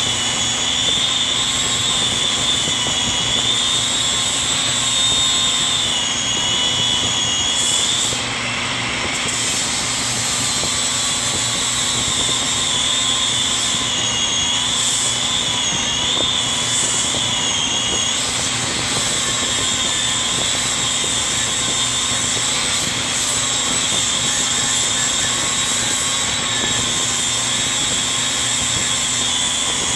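Milwaukee 18-volt cordless 4-1/2" angle grinder running on metal: a steady high whine whose pitch dips and recovers several times as the disc bites, with a short dip in loudness about eight seconds in.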